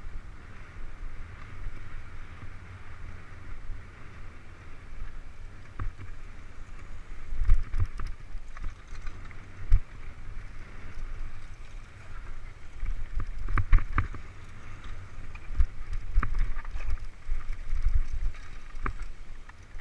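Mountain bike rolling fast down a dirt singletrack, heard from the rider's camera: steady wind rumble on the microphone and tyre noise, with frequent knocks and rattles from the bike over bumps and rocks, thickest past the middle.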